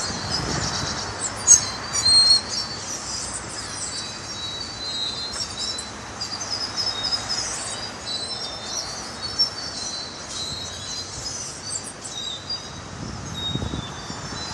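Many birds chirping and chattering at once, a dense run of overlapping high calls, with a few louder chirps about two seconds in.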